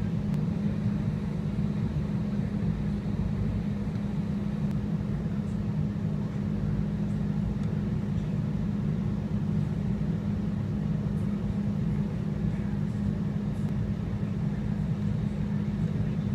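Steady low rumble with a constant hum in it, unchanging and without any sharp cracks or bangs.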